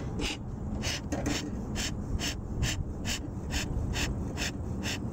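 Bee smoker's bellows pumped in a quick, even rhythm: a run of short puffs of air, about two to three a second. The pumping feeds air to the cedar-shaving fire inside to keep it burning rather than smoldering.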